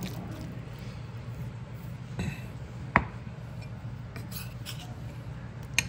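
Metal spoon scraping and stirring through guacamole against the sides of a glass bowl, with a sharp clink of spoon on glass about halfway through and another near the end.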